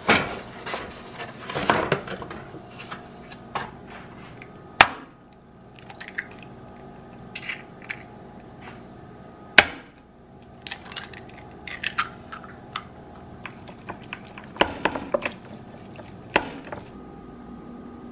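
Two eggs cracked on the rim of a glass food container, two sharp cracks about five seconds apart, among lighter clicks and taps of handling the shells and container.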